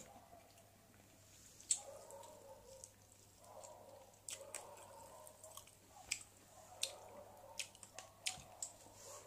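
A person chewing a mouthful of rice and pork gravy, faint, with about a dozen short sharp wet clicks scattered through and coming more often in the second half.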